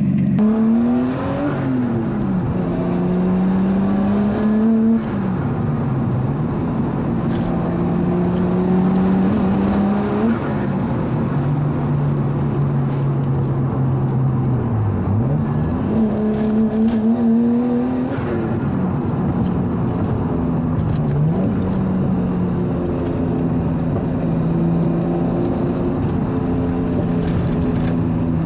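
Turbocharged RB25DET straight-six with a high-flow turbo and straight-pipe exhaust, accelerating hard several times. Its pitch climbs and then drops sharply at each gear change or lift-off, where the blocked blow-off valve makes the turbo flutter.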